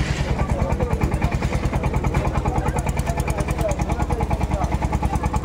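An engine idling with a steady, fast, even chugging beat, with faint voices talking in the background.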